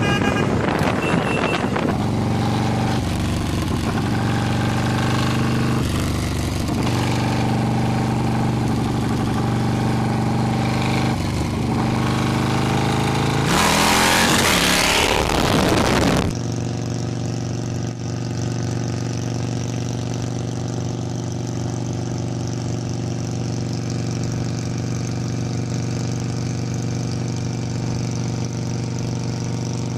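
Big custom cruiser motorcycles' V-twin engines running as they are ridden, one bike after another. A loud surge comes around 14 seconds in, then a sudden switch to another bike's engine, a custom Yamaha Roadliner, running steadily with an even low pulse.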